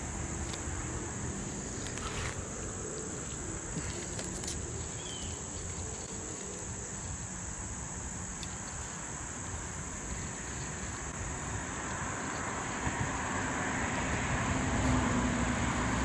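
Insects singing in a steady, unbroken high-pitched drone.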